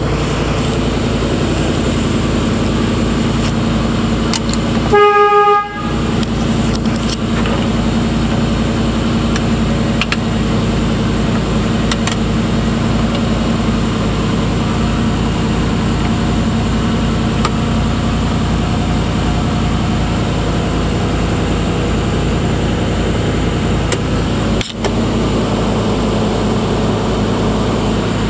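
Engine of a 1934 Mercedes-Benz 500K replica idling steadily while warming up from a cold start, heard from inside the cabin. About five seconds in, the car's horn gives a single toot of about a second.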